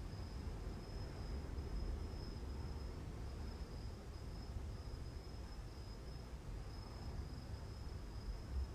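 A cricket trilling steadily on one high pitch, with a few brief breaks, over a low background hum.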